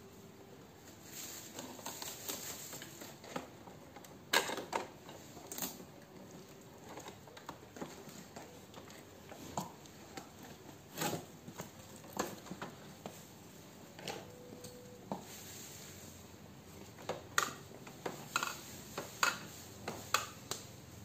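Scattered sharp clicks and knocks as hands handle an Epson L3210 printer's plastic casing and pull off its blue packing tape. Near the end comes a quick run of plastic clicks as the ink tank cover is opened and the tank caps are handled.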